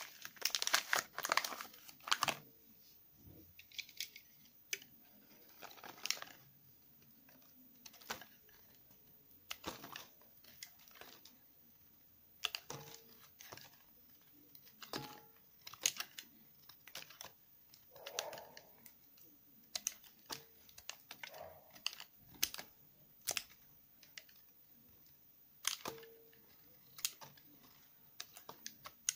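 The wrapper of a Palmolive olive bar soap crinkling and tearing open, then a small blade shaving thin curls off the dry soap bar, each cut a short crisp crunch, coming irregularly every second or two.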